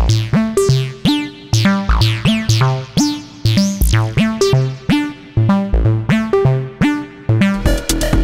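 Xaoc Devices Sofia analog oscillator in a modular synthesizer patch, playing a sequenced pattern of short plucked notes, a few a second, each with bright overtones sweeping down as its timbre is shaped. Near the end it switches to a faster, denser techno-style pattern over a steady low beat.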